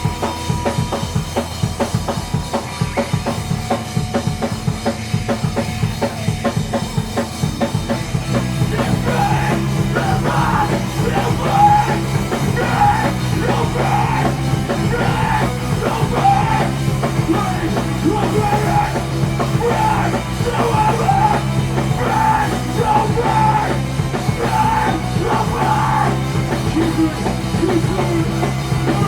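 Live rock band playing an instrumental passage loud: fast, dense drumming at first, then about eight seconds in the bass and guitars settle into held low notes under a busier guitar line, with the drums driving on.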